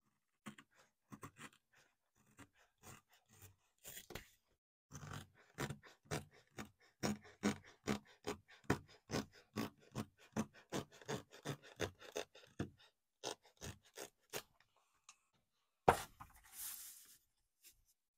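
A stiff diamond painting canvas is pushed and worked by hand into a wooden frame, making a run of short crackles and scrapes, about two or three a second at their busiest. About sixteen seconds in there is a single sharp knock, then a brief rustle.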